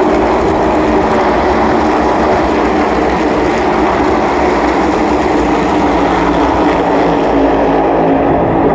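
The V8 engines of a pack of NASCAR Cup stock cars racing past, a loud, steady drone with no let-up.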